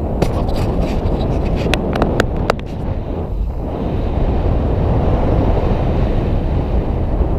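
Wind rushing over an action camera's microphone during a fast mountain-bike descent, a loud low rumble, with a quick run of sharp knocks and clatters from the bike in the first two and a half seconds.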